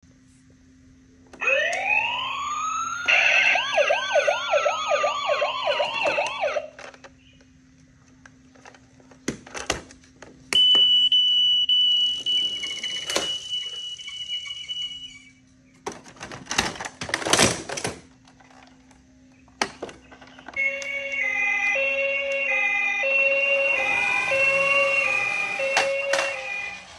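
Electronic sound effects from battery-powered toy vehicles: a siren winding up and wailing in sweeps, then a long steady high beep, a few clattering knocks, and a short electronic jingle with another siren sweep near the end.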